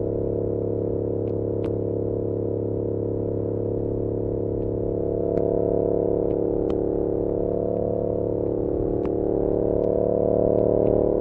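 2022 Yamaha R7's parallel-twin engine running through an SC-Project CR-T exhaust at fairly steady revs, swelling slightly twice, heard from a recorder inside a backpack. Scattered light clicks come from the bag straps slapping against the bag.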